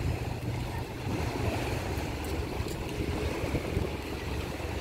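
Wind buffeting the microphone over open sea: a steady, unsettled low rumble with a wash of water beneath it.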